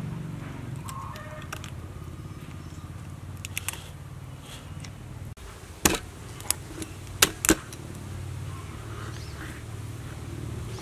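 Cleaver chopping a raw mud crab on a wooden cutting board: four sharp chops about six to seven and a half seconds in. A steady low hum runs underneath throughout.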